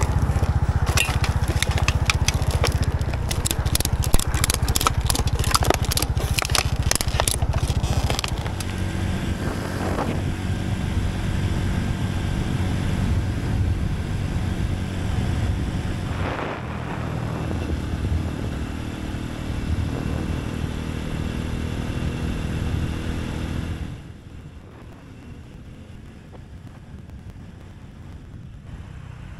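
Honda Super Cub's small single-cylinder four-stroke engine running, first with a plastic bag crackling and rustling as it is handled for several seconds, then under way with steady engine and road noise. The sound drops markedly quieter near the end.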